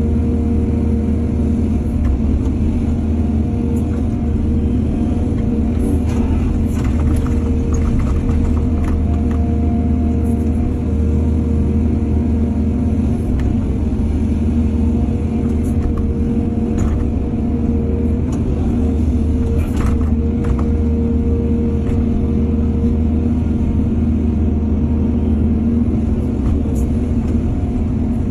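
Excavator's diesel engine running steadily under load with a low, even drone, with scattered short clanks and knocks from the working machine.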